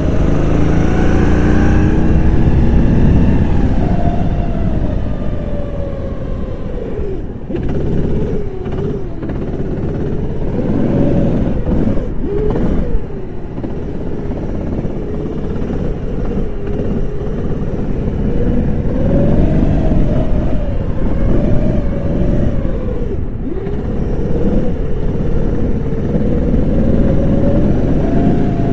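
Go-kart engine heard from the driver's seat, its pitch climbing under throttle and falling away as the driver lifts for corners, with three sharp drops in revs.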